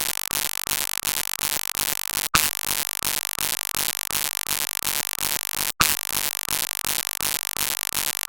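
Electronic emergency alert alarm: a harsh, static-like buzzing tone that pulses rapidly, broken by brief dropouts about every three and a half seconds.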